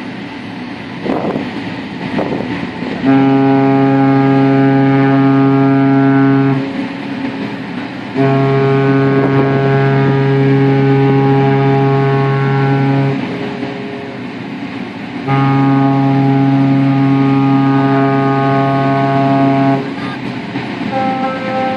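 Cruise ship's horn sounding three long blasts, each several seconds long and held at one steady low pitch, with short gaps between them. A higher-pitched horn tone starts just before the end.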